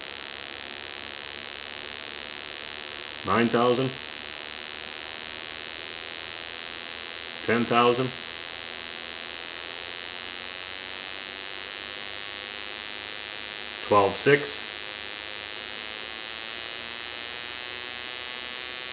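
Spark plug on a Honda CBR125R's performance-pack ignition arcing rapidly across its gap, heard as a steady electric buzz. The firing rate is stepped up from 8,000 RPM to about 12,600 RPM.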